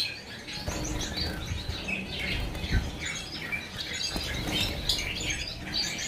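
Many small caged finches chirping and calling over one another in a bird room: short, high chirps scattered throughout, with a low rumble underneath.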